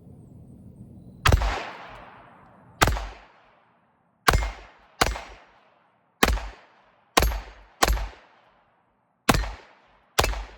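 Taurus TX22 .22 LR semi-automatic pistol firing nine shots at an uneven pace, some in quick pairs. Each shot is a sharp crack followed by a short echo.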